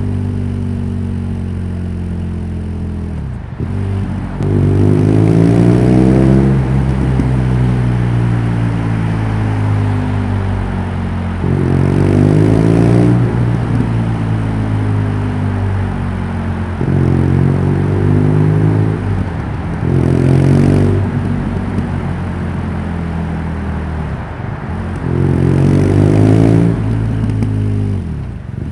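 BMW R nineT's 1170 cc boxer twin idling and being revved about five times. Each rev rises quickly, then falls back to a steady idle.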